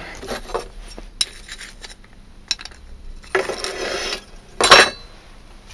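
Metal tools and steel being handled, clinking against each other: a few light clinks, then about a second of rattling clatter just past three seconds in, and the loudest clatter shortly before the end.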